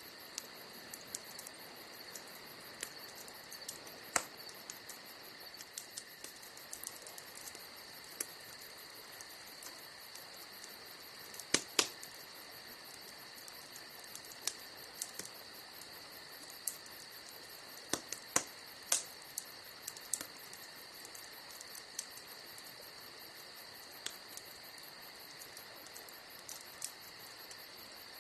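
Campfire crackling, with sharp pops scattered irregularly and a few louder snaps in the middle, over a steady high-pitched cricket trill.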